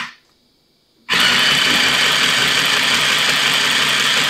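Sewing machine stitching a seam. A brief run stops right at the start, and after about a second's pause the machine starts again and runs at a steady speed.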